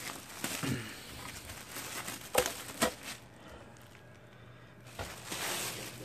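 Clear plastic wrapping crinkling and rustling as a boxed power saw is handled, with two sharp knocks close together about two and a half seconds in.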